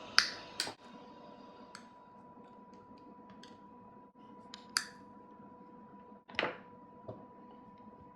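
Irregular sharp clicks and taps of small hard objects being handled, over a steady faint hum with a thin high whine. The loudest clicks come just after the start, near five seconds and about six and a half seconds in.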